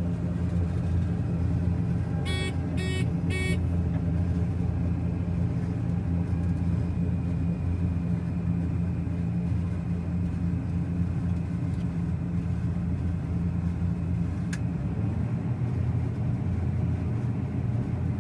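Combine harvester running steadily while unloading wheat into a truck, with three quick electronic beeps about two and a half seconds in.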